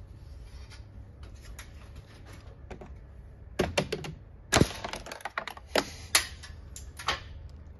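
Sharp plastic clicks and knocks of truck door trim being handled and clipped into place: scattered single snaps, a quick cluster about halfway through, the loudest just after, and a few more toward the end.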